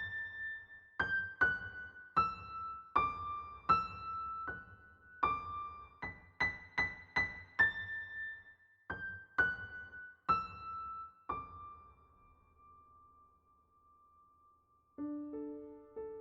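Background music: a piano-like keyboard melody of single struck notes that slows and fades on a held note, then a new lower phrase starts near the end.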